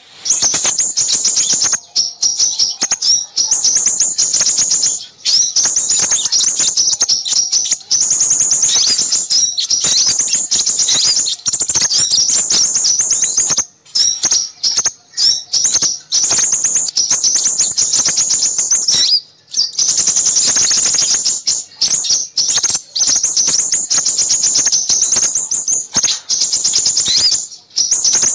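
Dense, continuous high-pitched chirping and twittering of many small birds, rapid notes overlapping almost without pause. This is a bird-lure recording ('ribut', busy) of small-bird calls, meant to draw in crimson sunbirds.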